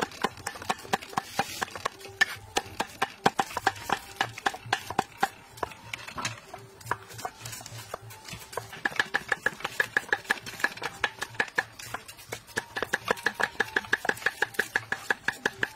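Cleavers chopping food on thick wooden chopping blocks, a run of quick sharp knocks that settles into steady runs of about five strokes a second in the second half.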